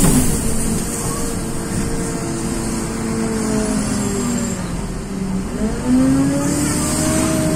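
Tezeller TezAuto LF1200 city bus engine heard from inside the bus: its pitch falls as the bus slows, holds low for a couple of seconds, then rises again from about five and a half seconds in as the bus pulls away. A brief hiss right at the start.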